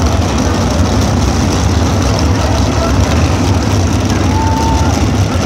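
A field of USAC Silver Crown race cars on a dirt oval, many engines running together as the pack rolls by in close rows, a steady loud drone.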